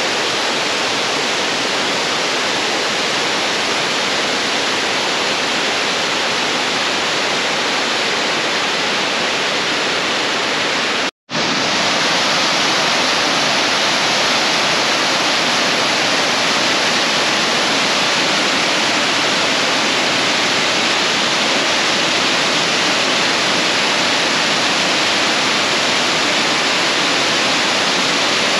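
A wide waterfall of many thin streams pouring over a mossy cliff into a river pool: a steady, full rush of falling water. The sound cuts out for an instant about eleven seconds in, then resumes a little louder.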